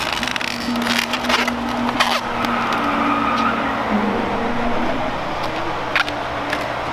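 Latex modelling balloon squeaking and creaking as it is twisted into a balloon dog, with squeals that waver in pitch and a few sharp rubbery clicks.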